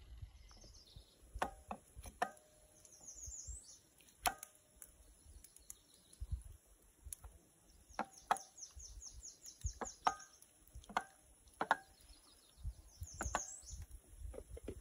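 Sharp metallic clinks with a brief ring, about eight over the stretch, as raw lake trout fillets are laid into a small frying pan sitting on a cast-iron fire grate. A songbird sings rapid high trills several times, one of them long, over a low rumble.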